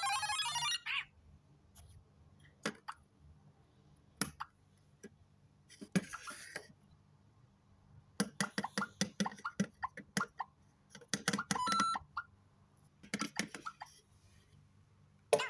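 LEGO Super Mario interactive figure playing short electronic jingles and sound effects through its built-in speaker as it is fitted with the Cat Mario power-up suit, with one jingle at the start and a busier run of blips later on. Scattered sharp plastic clicks of the LEGO pieces being handled and snapped on.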